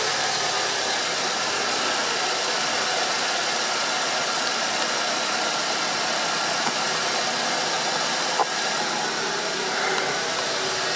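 Fiat Uno 1.4 Evo engine idling steadily during a coolant flush, over a steady hiss of tap water running from a hose into the coolant expansion tank. The running engine circulates the coolant, pushing the dirty water out through the reservoir return line.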